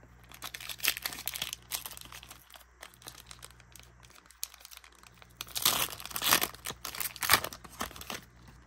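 Foil wrapper of a Pokémon booster pack crinkling and tearing as it is opened by hand. The loudest crackling comes in a run in the second half, as the wrapper is torn open and the cards are pulled out.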